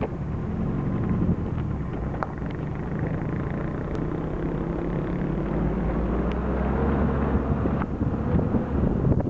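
A vehicle's engine running steadily while driving along a road, heard from on board, with wind and road noise over it and a single sharp click about four seconds in.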